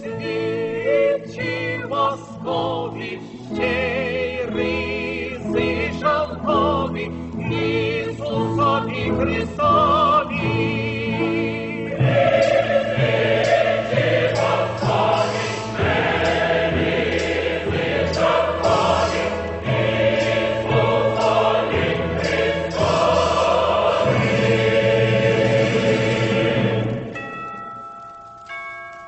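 Background music: a choir singing a Ukrainian Christmas carol. The singing grows fuller about twelve seconds in and fades away near the end.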